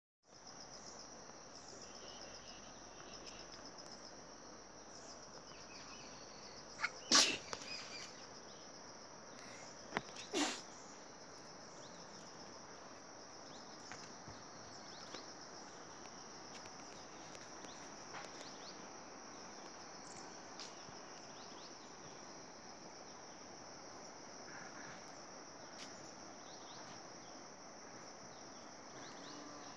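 Steady high-pitched chorus of insects trilling, with a faint background hiss. Two short, loud whooshes cut across it about three seconds apart, a third of the way in.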